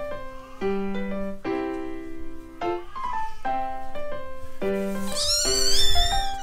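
Background music of held melodic notes; about five seconds in, a golden British shorthair kitten gives a run of high-pitched mews that bend up and down.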